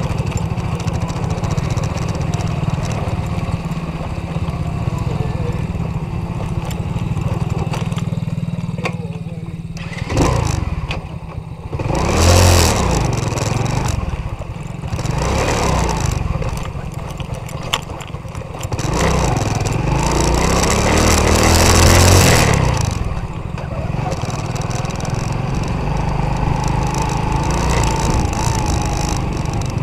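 Small 125 cc quad bike engine running steadily, revved up and back down twice in the middle, its pitch rising and falling.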